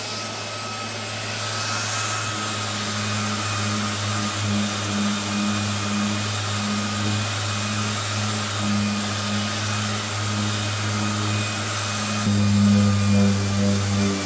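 Festool random-orbit sander with a dust-extraction hose attached, running steadily on its slowest speed with 120-grit paper as it sands old varnish off a wooden cabinet's veneer: a constant motor hum under a steady hiss. It gets a step louder about twelve seconds in.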